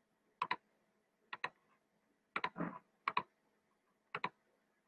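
Computer mouse clicking, faint: five pairs of sharp clicks spread about a second apart as the cursor works through the program's screens.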